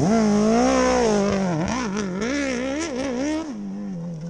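A CBR600 inline-four engine in a DR-Z dirt bike frame revving hard for a launch start and pulling away. The revs rise and fall unevenly under full throttle, then settle to a lower, steadier note about three and a half seconds in as the bike moves off.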